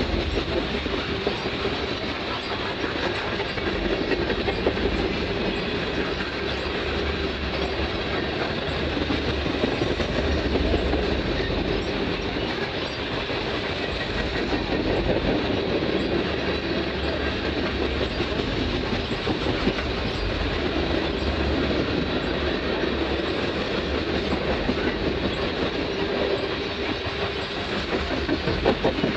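Coal hopper cars of a freight train rolling past, their steel wheels running on the rails in a steady rumble.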